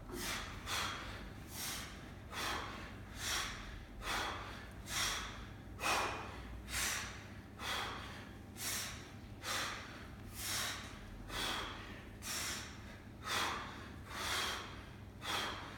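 A man breathing hard and fast from heavy exertion, forceful breaths repeating evenly a little under once a second.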